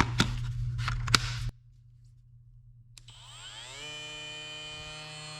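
Clicks and handling noise as the Kobalt 24-volt oscillating multi-tool is handled with its battery fitted. About three seconds in, a switch clicks and the tool's motor spins up, rising in pitch, then runs with a steady whine.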